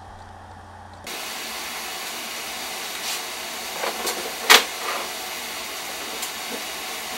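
A steady hiss with several sharp knocks and clacks as a heavy Monotype keyboard part is handled and set in place. The loudest knock comes about halfway.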